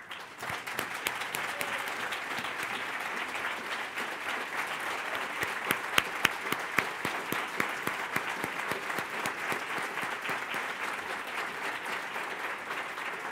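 Large audience applauding steadily, many hands clapping together, with a few louder single claps standing out about six seconds in.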